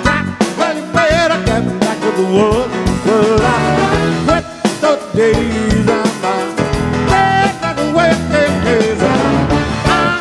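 Live band playing an upbeat, bouncy piano-led song, with a male lead vocal singing over grand piano and keyboards and a steady beat.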